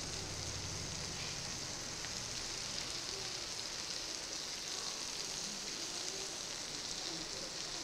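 Chopped onions, tomatoes and ground spices frying in oil in a non-stick pan: a steady sizzle.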